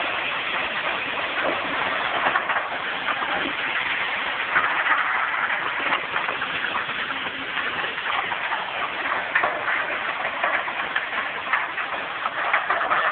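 A rocker washing plant working a load of gravel: a steady, dense clattering din of machinery and stones.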